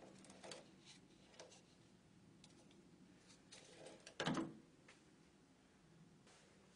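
Faint clicks and light rattles of a cable-tethered dummy phone being handled, then one louder plastic clack about four seconds in as the phone is docked onto its retail security display stand.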